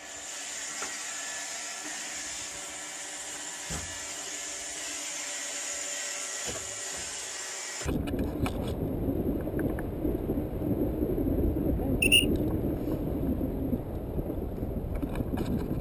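Robot vacuum cleaner running with a steady whirring hum and hiss, cutting off suddenly about halfway through. Then wind rushing over the microphone in flight, with one short high whistle about twelve seconds in.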